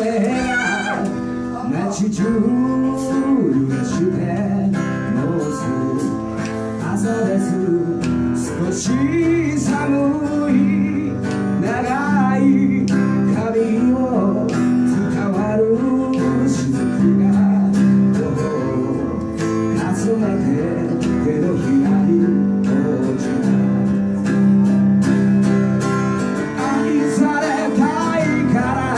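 Live acoustic band music: acoustic guitars strumming steady chords, with a lead melody line over them.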